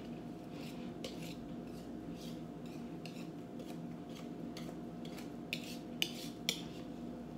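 A wire whisk scraping against a mixing bowl in short strokes, about two a second, as a soft pie filling is scooped out, with three sharper clinks about five and a half to six and a half seconds in.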